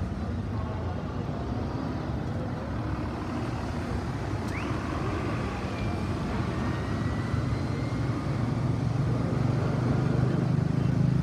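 Busy city avenue traffic: a steady drone of passing cars and buses, growing louder near the end as a vehicle passes close.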